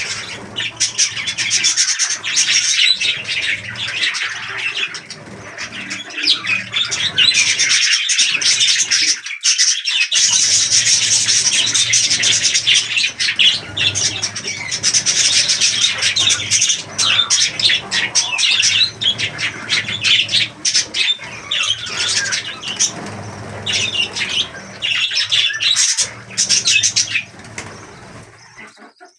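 A flock of budgerigars chattering and chirping continuously, with many short clicks among the calls; it thins briefly about a third of the way in and fades near the end.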